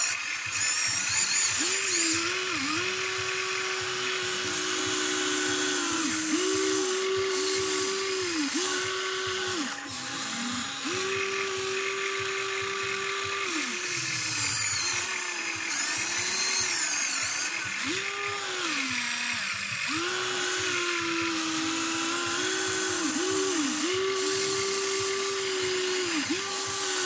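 Electric motors of a HUINA RC excavator whining as the boom, arm, bucket and swing move while it digs and loads dirt. Each movement is a steady whine that rises in pitch as it starts and drops away as it stops, over and over, with fainter higher whines swooping up and down.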